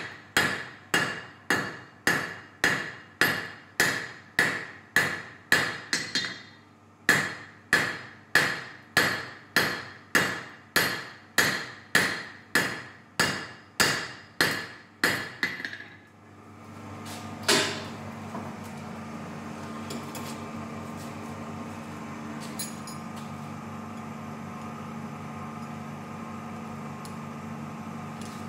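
Hand hammer striking hot steel on an anvil, forging a small knife blank in a steady rhythm of about two ringing blows a second, with a short pause about six seconds in. The hammering stops about sixteen seconds in. After one more blow, a steady hum carries on.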